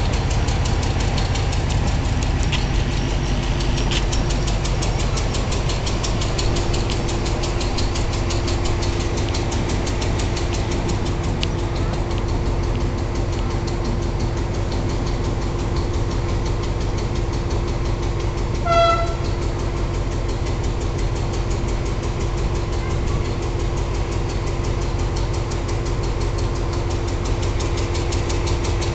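Passenger train at the platform with its engine and equipment giving a steady low rumble and an even hum. About two-thirds of the way through comes one short, high toot.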